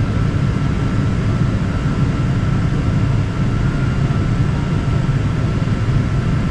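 Steady cabin noise inside a Boeing 777-200ER on the ground before takeoff: a low, even rumble with a thin steady whine above it.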